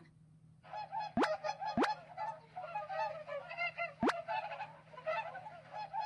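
Swans honking, many overlapping calls starting about a second in, with a few short, sharp rising sweeps cutting across them.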